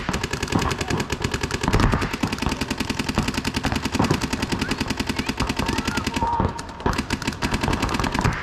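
Paintball markers firing rapid strings of shots, many pops a second, the firing thinning out about six seconds in.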